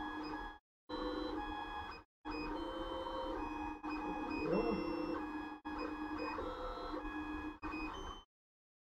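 3D printer's stepper motors whining through bed-leveling probe moves, each move a steady tone at its own pitch, with a brief rise and fall in pitch near the middle. The sound cuts out abruptly several times.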